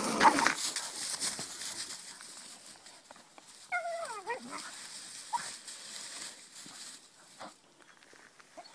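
Two dogs playing in frosty grass: rustling of paws through the grass at first, then, about four seconds in, one dog gives a short whine that falls in pitch.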